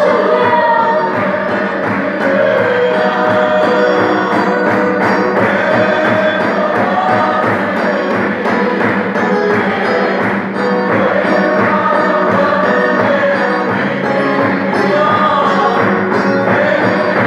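A group singing a lively worship song in unison over a steady, continuous drum and percussion beat.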